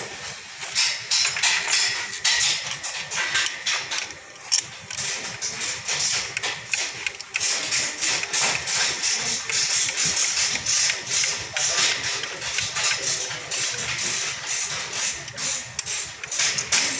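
Carburetted car petrol engine running at idle, with a rapid, uneven clatter.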